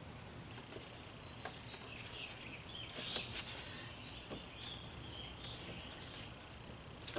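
Quiet background with faint bird chirps and a few light clicks and taps from hands working a hose onto a fuel filter.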